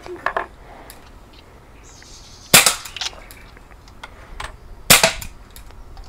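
Walther PPQ CO2 air pistol firing twice, about two seconds apart, each sharp pop followed a fraction of a second later by a fainter tick.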